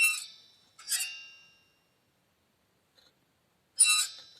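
A few sharp metallic clinks, each ringing briefly, two in the first second and more near the end: a rear wheel-hub stud knocking and rubbing against the coil spring, the cause of the knock that was blamed on the strut.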